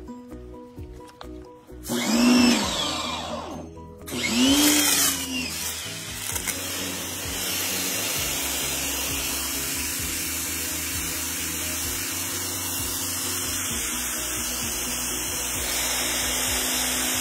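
Greenworks GPW2000 electric pressure washer: two short bursts as the motor spins up and down, each rising then falling in pitch. About six seconds in it settles into a steady run, with the water jet hissing onto the concrete.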